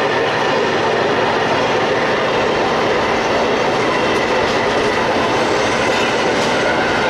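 The EMD 16-645E diesel engine of a DE22000-class (EMD G26CW-2) locomotive working under load up a grade, mixed with steel wheels running on the rails. The sound is steady and dense, with a faint high squeal from the wheel flanges against the rail.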